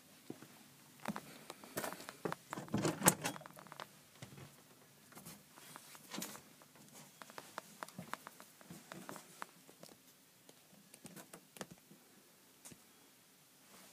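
Scattered clicks, knocks and light footsteps, with a louder cluster of knocks about two to three seconds in as a wooden door is opened and walked through.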